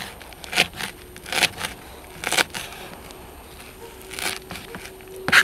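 A knife chopping a bunch of fresh dill on a sheet of cardboard: a few separate, irregularly spaced chops, the loudest near the end.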